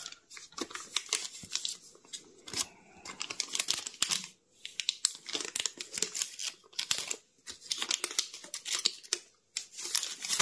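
Thin clear plastic wrapping being handled and pulled open, crinkling and crackling in irregular bursts with short pauses between them.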